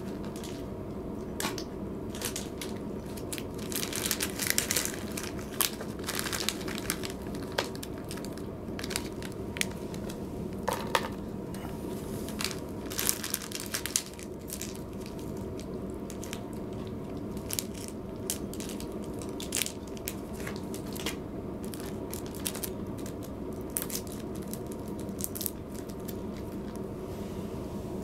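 A cat crunching dry food from a plastic bowl: irregular crisp crunches, denser and louder in a few spells, over a steady low hum.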